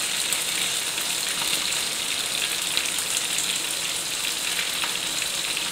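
Steady hissing from the lit gas stove, with a few faint clicks as a spoon scoops curd from a plastic tub.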